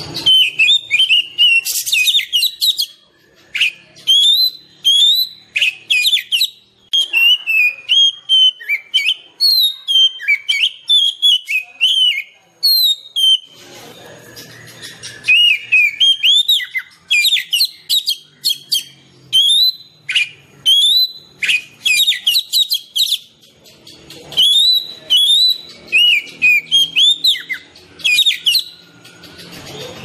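Oriental magpie-robin singing a long, varied song: loud whistled phrases with rising and falling slurs, mixed with short harsh notes and broken by a few brief pauses.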